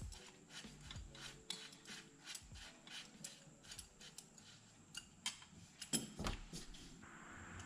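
Ratchet wrench clicking in short strokes as an intake manifold bolt is turned in, a few faint clicks a second with a couple of louder ones near the middle.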